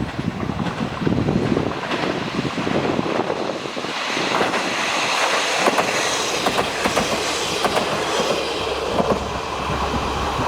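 Two-car KiHa 47 + KiHa 40 diesel railcar train passing close by, its wheels clacking rapidly over the rail joints with a steady rush of running noise.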